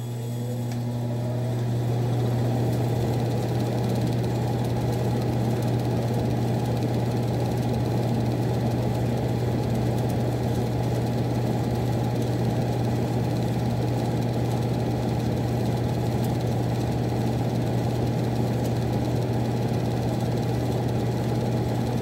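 Miller E2 furnace blower running with a steady low hum and whir, rising in pitch and level over the first two seconds, then holding steady.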